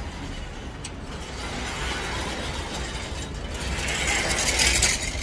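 A mechanism rattling and clicking, growing louder over the last two seconds, over a steady low hum.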